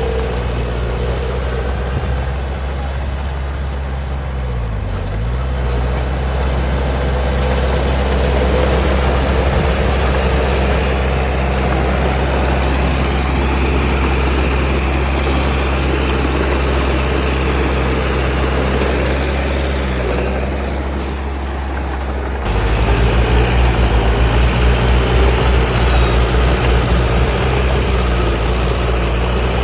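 Bulldozer's heavy diesel engine running steadily, with a brief dip in pitch about five seconds in. Around twenty-two seconds in the sound changes suddenly to a louder, pulsing low throb.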